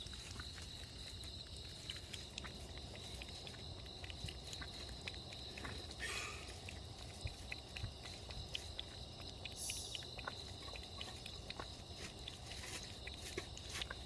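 A young stray kitten lapping and eating: a run of small, irregular wet clicks.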